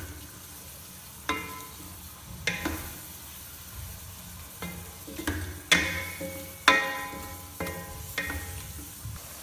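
Minced beef frying with onions, ginger-garlic paste and green chillies, sizzling in oil as a wooden spoon stirs it in a pot. The spoon knocks against the pot about eight times, each knock ringing briefly.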